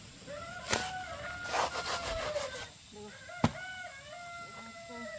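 Farm poultry calling: several drawn-out, overlapping calls, with a sharp knock about three and a half seconds in and a short rustling noise a little before.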